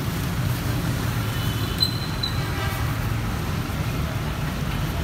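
Steady low rumble of street traffic, with a brief high-pitched tone about two seconds in.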